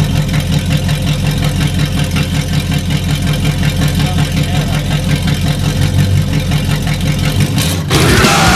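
Chevelle SS's V8 idling with a low, steady pulse. About eight seconds in, the sound cuts abruptly to louder music.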